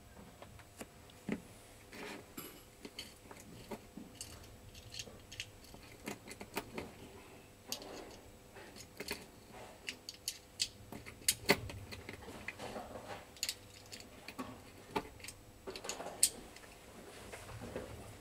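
Irregular small clicks and metallic clinks of handling. Two sharper clicks, about halfway through and again near the end, are louder than the rest.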